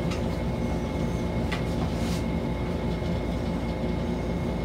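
A steady low mechanical hum with a few constant tones over it, plus a few faint clicks and a brief hiss about two seconds in.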